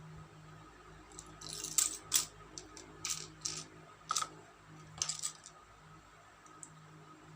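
Small plastic building bricks clicking and rattling as they are handled and pressed together: a scattering of sharp clicks and short crackles between about one and five and a half seconds in, over a faint steady hum.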